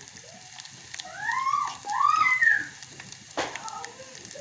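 Garlic and ginger frying in hot oil for a tadka, a steady sizzle. Over it come two short high-pitched calls, each rising then falling, in the middle, and a sharp click near the end.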